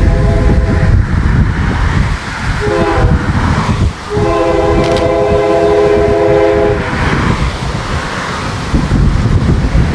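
Diesel locomotive's multi-tone air horn sounding for a grade crossing as it approaches. The end of a long blast, a short blast about three seconds in, and a long blast of nearly three seconds, over a low rumble. This is the close of the long-long-short-long crossing signal.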